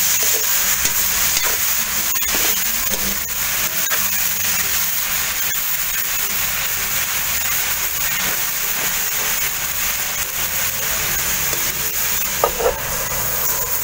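Wild oyster mushrooms and pork sizzling in a hot wok while a metal spatula stirs and scrapes them: a steady frying hiss with frequent small scraping clicks.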